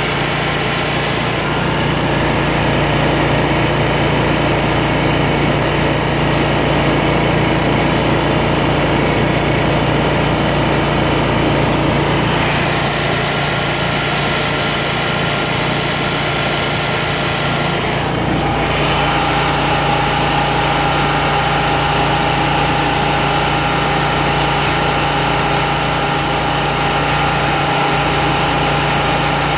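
Kubota Z726X zero-turn mower's Kawasaki FX801 V-twin engine running steadily at high throttle while the hydrostatic transaxles are driven in reverse to purge air after a fluid change. A steady whine joins about two-thirds of the way through.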